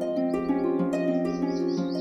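Soft plucked-string background music, with a small bird chirping in quick high trills over it near the start and again from about a second in.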